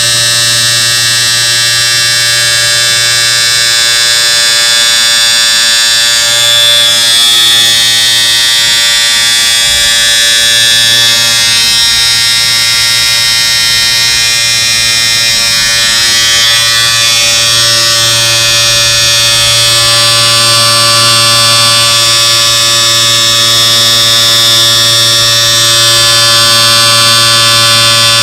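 Electric shaver running steadily: a constant, loud buzz with a low hum and bright, high overtones.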